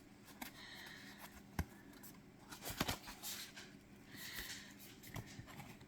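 Faint handling of tarot cards: soft rustling and sliding of card stock, with a few light taps as cards are set down.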